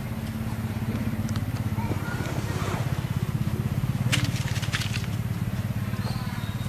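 A macaque eating fruit close by, with sharp crunching clicks about four seconds in, over a loud, steady low rumble.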